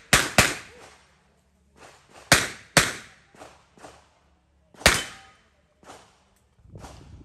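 Glock 22 .40 S&W pistol firing: a quick pair of shots at the start, another pair about two and a half seconds in, and a single shot about five seconds in, with fainter knocks in between.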